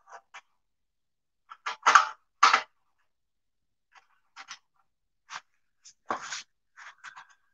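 Handling noise from hands working on a small power sprayer pump: a series of short scrapes and knocks. The loudest are two about two seconds in and another just after six seconds.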